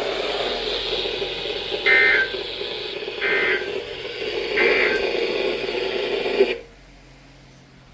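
Weather radio sending the EAS end-of-message code after a flash flood warning: three short digital data bursts about 1.3 seconds apart over hiss and hum. The radio's audio cuts off about six and a half seconds in.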